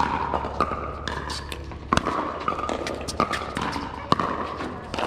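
Pickleball rally: paddles striking the hollow plastic ball with sharp pops, four loud ones about a second apart and fainter ones in between, each pop ringing briefly.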